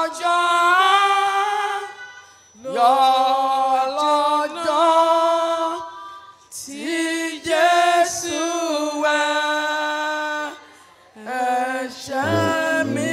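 Unaccompanied singing of a Yoruba worship song in four phrases of long held notes with short breaks between them. A low steady hum comes in near the end.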